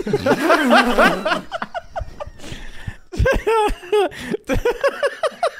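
Men laughing hard, several voices overlapping in the first couple of seconds, then one laugh breaking into quick repeated bursts in the second half.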